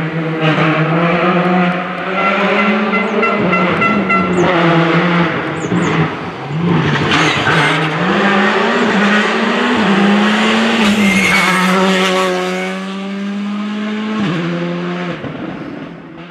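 Skoda Fabia R5 rally car's 1.6-litre turbocharged four-cylinder engine running hard on a stage, its pitch rising and dropping back several times with gear changes, then fading out near the end.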